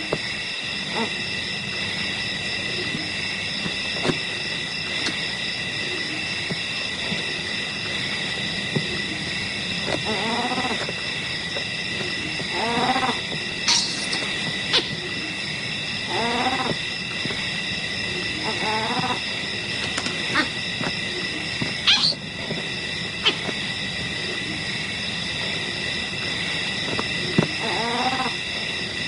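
A steady, shrill insect chorus, with a short pitched wild-animal call repeated five or six times, each under a second and a few seconds apart.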